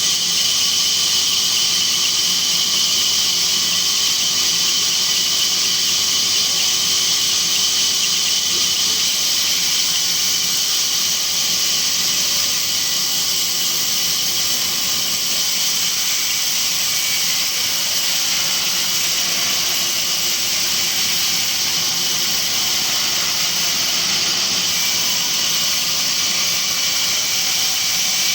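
Band sawmill running, a steady high-pitched whine with hiss that holds without break.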